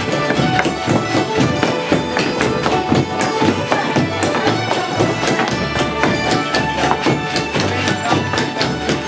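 Old-time fiddle dance tune played with a string band, with a steady bass line, and flatfoot dancers' shoes tapping and shuffling on the floor in time with the music.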